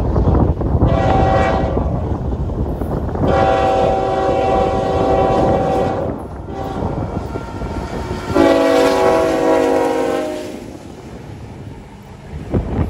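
Lead locomotive's air horn, on a Union Pacific ET44AH, sounding three chord blasts: a short one about a second in, then two long ones of about three and two seconds. Under them runs the low rumble of the diesel locomotives rolling past, with a thump near the end.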